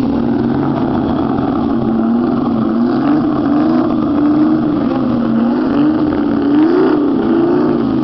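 The engine of a 1957 Ferrari Testarossa recreation running and being revved lightly, its pitch rising and falling gently, with the highest blip about seven seconds in.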